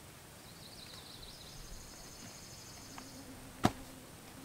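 A folding camp chair being put together, with one sharp click near the end as a part of its frame snaps into place. Before it, a high, thin trill runs for about three seconds in the background.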